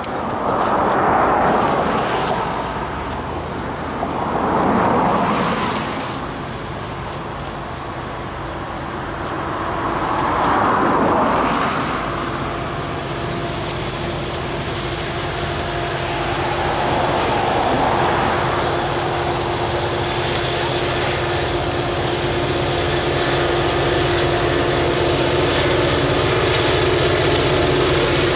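Road vehicles passing several times, each a swell of noise that rises and fades. From about halfway in, the Union Pacific diesel locomotives at the head of the train come in as a steady engine drone that grows slowly louder as they approach.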